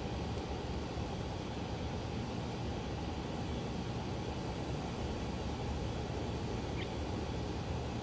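Steady low rumbling background noise with no distinct events.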